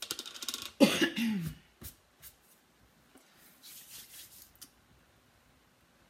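A woman coughing briefly in the first second and a half, followed a couple of seconds later by a faint brushing noise.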